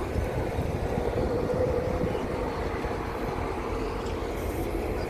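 Diesel engines of heavy excavators running steadily, a continuous low drone with a faint steady hum.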